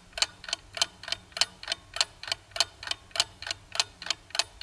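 Clock-ticking sound effect used as a countdown timer for an answer, evenly paced at about four ticks a second, alternating louder and softer.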